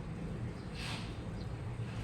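Washing machine running with a steady low hum, water and laundry sloshing in the drum; a swish of water about a second in and a smaller one shortly after.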